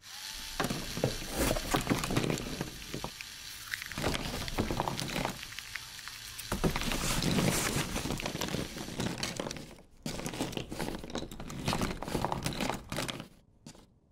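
Animation foley of crackling, crumbling debris: a dense run of crackles, crunches and knocks that starts suddenly, drops out briefly about ten seconds in, then returns and stops just before the end.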